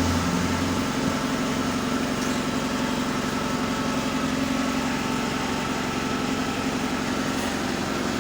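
Steady mechanical drone with an even hiss underneath, from a motor-driven machine running without a break.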